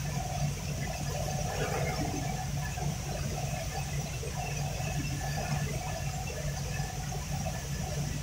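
A 12,000-bottle-per-hour pure-water filling line running: a steady mechanical hum and hiss from the conveyors and machinery, unchanging in level.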